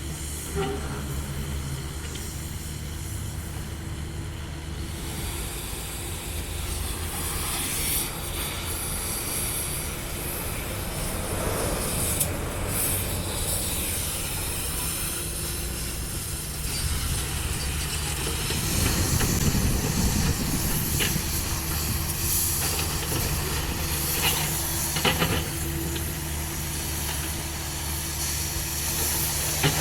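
CAT 305.5E2 mini excavator working, its diesel engine running steadily under a hiss and scraping of the hydraulics and rubble, with a few sharp knocks.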